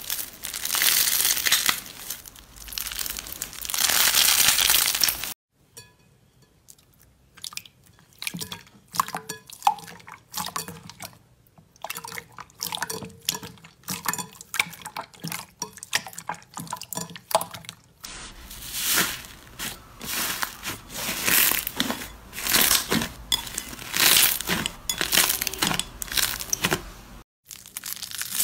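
Hands squeezing a dyed porous sponge with long crackly rustling squeezes. Then clear slime is pressed and squished with many small clicks and pops. From about two-thirds in come louder repeated crunching presses, ending with foam beads crunching under a hand.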